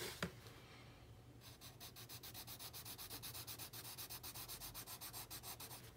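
Caran d'Ache Luminance coloured pencil shading on Midori notebook paper: faint, quick back-and-forth scratching strokes, about nine a second, starting about a second and a half in.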